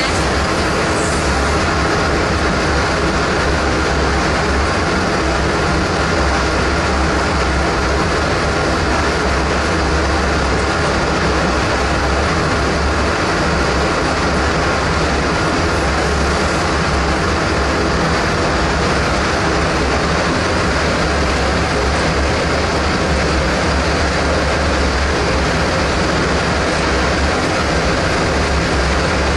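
AER Control Systems APB 4250 downdraft table's extraction fan running steadily under load, a loud even rush of air over a low hum, with the suction pulling smoke down through the perforated table top.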